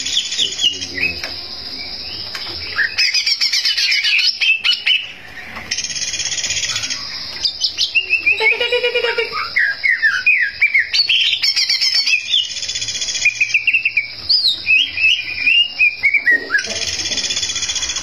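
Leafbird (cucak ijo) singing a fast, varied song of rapid rising and falling chirps and whistles, in repeated runs with brief pauses. Under it runs a steady high-pitched trill.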